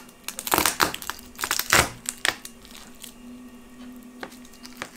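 Garlic cloves being crushed under the flat of a santoku knife blade on a plastic cutting board: a few sharp crunches and knocks in the first two seconds or so, then only small clicks.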